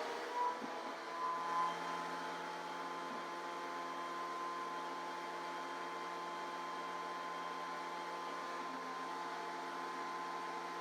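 A woodworking shop machine running steadily with an even motor hum and no cutting in the wood.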